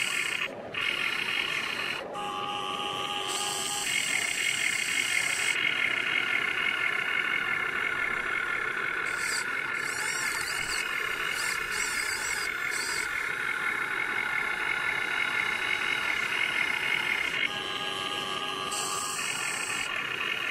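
Huina 1580 RC excavator's electric motors and gearboxes whining steadily as the boom, arm and bucket dig and dump sand. The whine changes as functions switch, cutting out briefly twice in the first couple of seconds and running louder through the middle.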